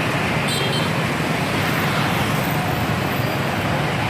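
Steady traffic noise of many motorbikes and scooters riding past in a dense, slow stream, their small engines blending into one continuous hum.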